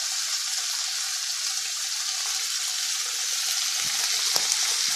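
Diced chicken with onion and garlic sizzling in olive oil in a frying pan, a steady high hiss. A couple of faint knocks sound near the end.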